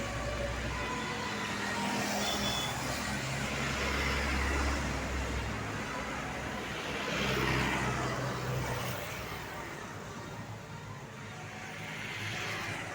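Road traffic passing close by: several vehicles go past one after another, engine rumble and tyre noise swelling and fading about four, seven and twelve seconds in. No horn sounds.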